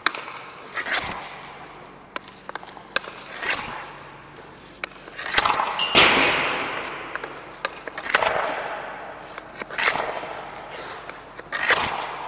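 Hockey pucks shot one after another with a CCM FT5 Pro composite stick, about every two seconds: each shot is a sharp crack that echoes around the ice arena. The loudest shots come about halfway through and again near the end. Between the shots there is a light scraping of skates on the ice.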